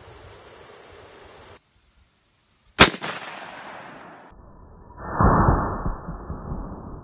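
A single sharp shot from a Ruger .357 revolver about three seconds in, ringing off over a second or so. Then, with the highs cut away, a deep, muffled boom swells up and fades: the slowed-down replay of the shot.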